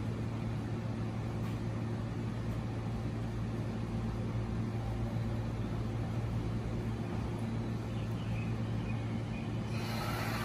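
Steady electrical hum of a stopped JR 209 series electric train's onboard equipment, with low even tones. A hiss rises near the end.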